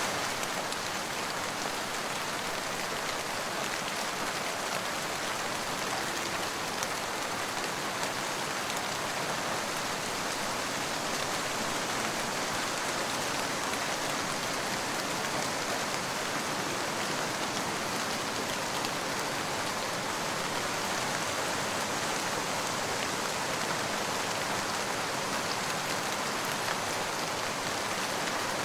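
Steady rain falling and pattering on a surface, an even rushing hiss with scattered individual drops.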